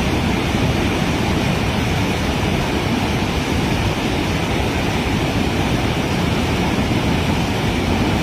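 Floodwater rushing through the broken flood gates of a river headworks: a loud, steady roar of moving water.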